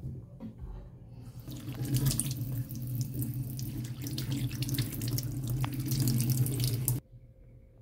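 Tap water running into a stainless steel sink and splashing over a ginger root being rinsed by hand. The water starts about a second and a half in and cuts off suddenly near the end.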